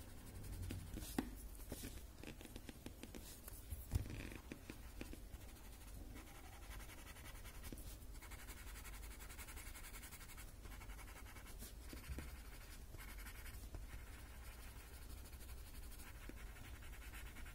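Faint scratching of graphite shading strokes on a paper Zentangle tile, in short passes that come and go, with a soft tap about four seconds in.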